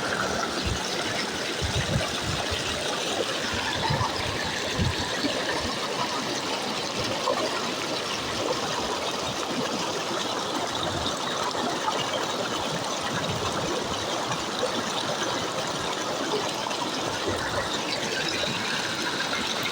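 Floodwater flowing, a steady even noise with a few low bumps in the first five seconds.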